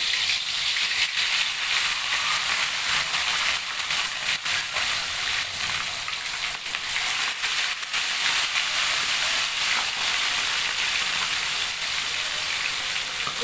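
Chicken pieces deep-frying in hot oil in a wok, a steady sizzle with scattered crackling pops.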